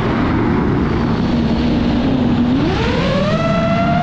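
DJI FPV drone's motors and propellers whining over a rush of air noise. The whine holds a low pitch, then climbs steadily from about two and a half seconds in as the motors speed up.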